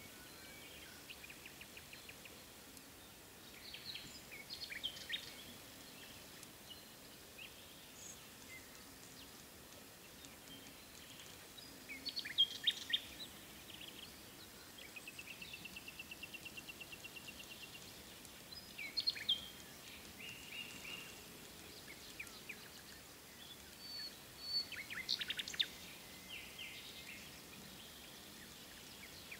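Songbirds singing in short high chirping phrases every few seconds, with a rapid even trill lasting about three seconds around a third of the way in, over a faint steady background hiss.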